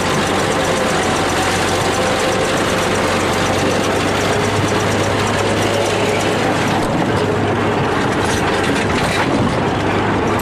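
Bulldozer's diesel engine running steadily at a constant level, with a low hum throughout.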